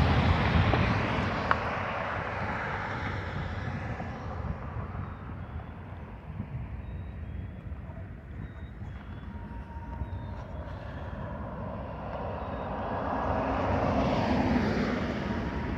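Road traffic: a car passes close by, its tyre and engine noise swelling to a peak near the end and then easing, after the noise of earlier traffic fades over the first few seconds. Wind rumbles on the phone's microphone throughout.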